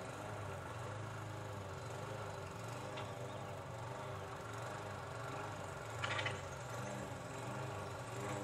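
A steady low mechanical hum, with a short rattling burst about six seconds in.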